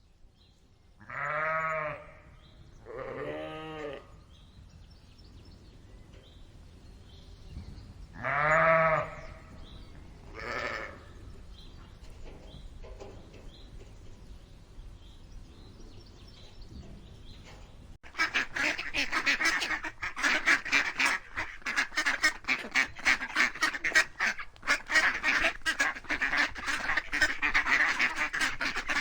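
Farm animal calls: three short rising-and-falling calls in the first nine seconds, then, about two-thirds of the way in, a dense, loud chatter of many rapid calls from a crowd of animals that runs on without a break.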